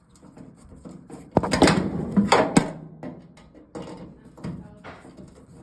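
Knocks and rattling of the dryer's metal cabinet and screws as the top panel is fastened down, with a sharp loud knock about a second and a half in, then lighter clicks.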